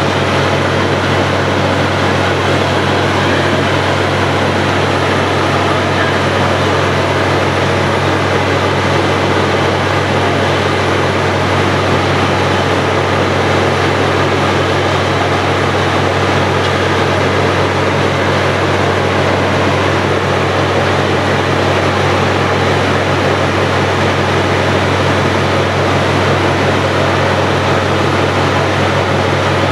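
Truck-mounted borewell drilling rig running steadily under load while drilling, a loud continuous engine hum and machine noise, with slurry flushing out of the borehole around the turning drill rod.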